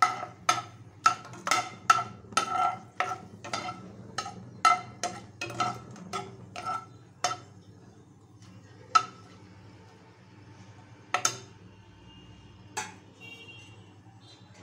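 Metal ladle knocking and clinking against a nonstick kadai while whole spices are stirred in oil for tempering. About two ringing knocks a second for the first seven seconds, then three more spaced a couple of seconds apart.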